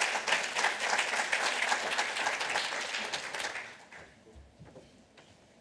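Audience applauding at the end of a lecture, a dense patter of many hands clapping that dies away about four seconds in. A few faint knocks follow.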